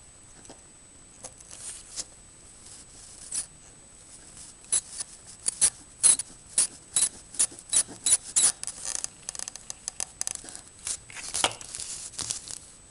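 Rosin flux in copper solder wick crackling and popping under a hot soldering iron tip as the braid soaks up solder from the joints: sharp irregular clicks, a few at first, then several a second from about five seconds in until near the end.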